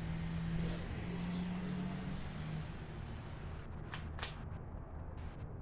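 A handful of sharp clicks from a CO2 blowback BB pistol being handled and worked, coming in a quick cluster a little past halfway, over a steady low hum. The gun is out of CO2, so its parts click but it does not fire.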